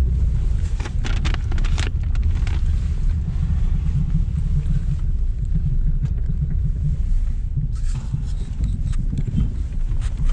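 Steady low engine and road rumble inside a moving car's cabin. Short bursts of rustling and small knocks about a second in and again about eight seconds in come from the camera being moved against bags and seats.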